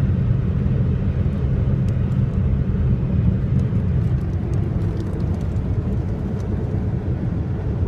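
Steady rumble of road and engine noise inside a car's cabin at highway speed.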